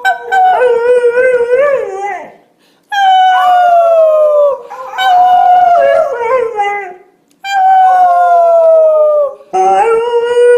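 A puppy howling: about five drawn-out howls of a couple of seconds each, most sliding down in pitch, some wavering, with short breaks between them.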